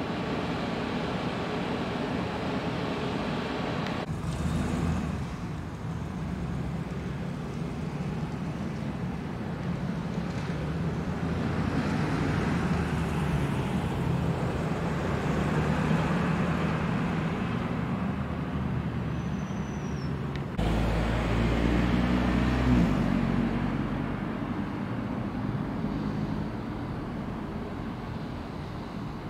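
Street ambience: a steady low traffic rumble that swells as vehicles pass. The background changes abruptly twice.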